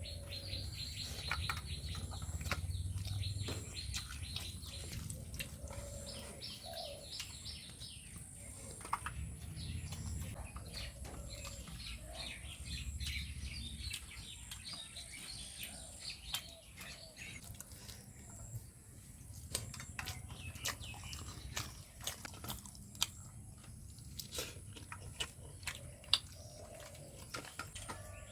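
Small birds chirping in quick runs of high notes, over scattered short clicks and taps.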